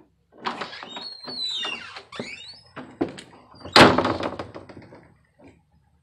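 A door creaking on its hinges with squeaky falling squeals, then a few knocks and a loud bang about four seconds in.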